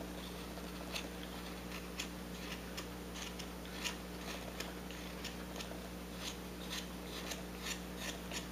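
Whittling knife shaving a wooden carving in small strokes: short, crisp cuts at an irregular pace, roughly one every half second.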